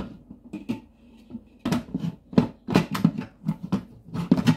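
Instant Pot pressure-cooker lid being handled and twisted on the pot: an irregular run of clunks and knocks, sparse at first and coming thick and fast from about halfway through, as the lid is worked while trying to lock it.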